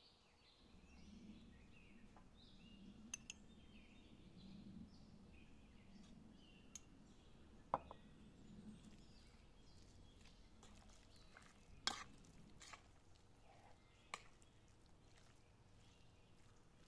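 Metal spoon clinking against ceramic bowls while spices are stirred into raw chicken pieces: quiet scraping, with a few sharp clinks, the loudest about eight and twelve seconds in.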